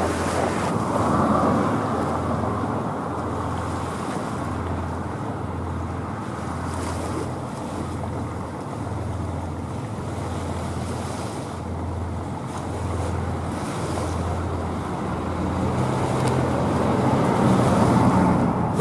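Wind noise on the microphone and the wash of water aboard a moving ferry, over a low engine hum that swells and fades every second or so. The wind grows louder near the end.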